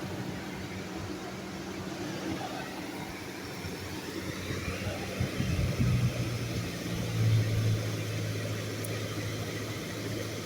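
1985 General Electric Carry Cool window air conditioner running, heard at its outdoor side: a steady compressor hum under the rushing air of the condenser fan. The hum grows stronger a little past halfway.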